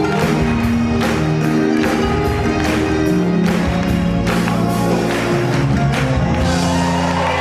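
Live band playing loudly at a concert, with drum hits keeping a steady beat over low sustained notes, moving into a held chord near the end.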